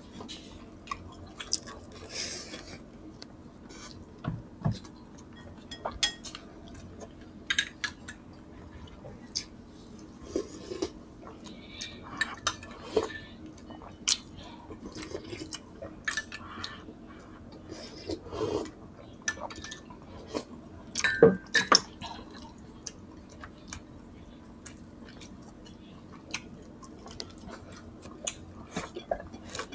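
Close-up eating sounds: spoons clinking against dishes, chewing, and sips of soup broth from spoons. They come as scattered short clicks and smacks, with the loudest cluster a little past the middle.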